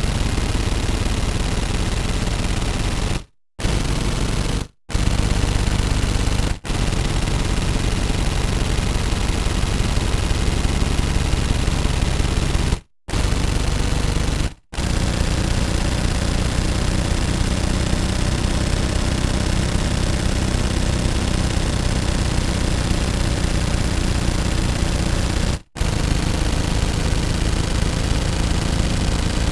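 Automatic gunfire: long sustained bursts of rapid shots, broken by about six brief pauses.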